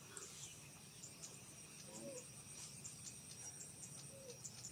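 Faint insects chirping: a steady high-pitched hum broken by short, repeated chirps. Two faint short calls come about two and four seconds in.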